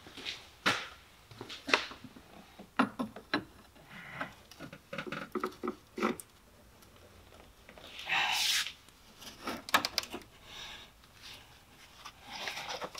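Scattered metallic clicks and knocks of a spanner being worked onto the belt tensioner bolt in a cramped engine bay, with a longer scraping rustle about eight seconds in.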